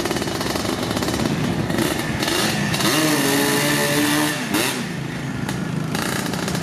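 Big-bore 240cc Yamaha Blaster two-stroke single on a drag minibike revving hard at the start line. About three seconds in the revs rise and hold for over a second, then drop as the bike launches away.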